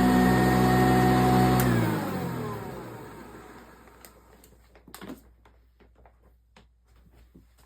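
A 1987 Eureka self-propelled upright vacuum cleaner runs steadily. About one and a half seconds in it is switched off with a click, and the motor winds down, falling in pitch and fading over a second or so. A few faint clicks and taps follow.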